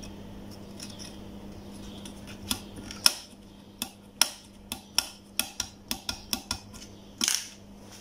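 Sharp plastic clicks, about a dozen in a quick irregular run starting a couple of seconds in, as the electric kettle's thermostat on/off switch and its lever are worked by hand. A faint steady hum runs underneath.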